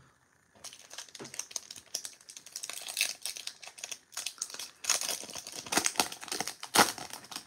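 Wrapper of a Topps 2022 Series 2 baseball card pack crinkling and crackling as it is handled and torn open, with the loudest crackle near the end.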